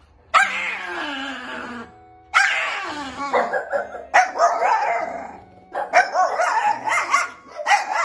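Small dog vocalizing: two long howls that fall in pitch, then a run of shorter, wavering yelps and yowls.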